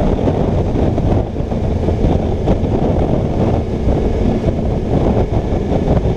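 Wind rushing over the microphone of a motorcycle at road speed, a steady low roar with the bike's engine running beneath it.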